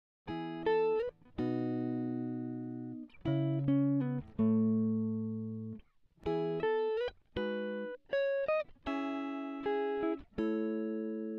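Background music: a solo guitar playing plucked notes and chords that ring out and fade, with a few notes sliding up in pitch.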